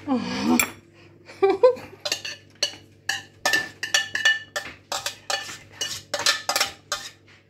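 Metal spoon knocking against a stainless steel saucepan, tapping boiled potatoes out onto a metal baking tray: a run of sharp, ringing clinks, about two a second, starting about two seconds in.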